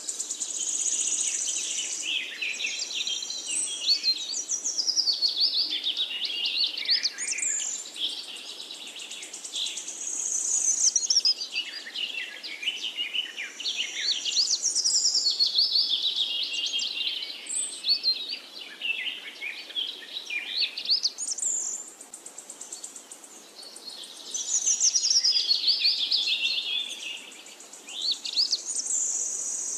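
Birdsong: long phrases of rapid chirps and trills, with short pauses between the phrases.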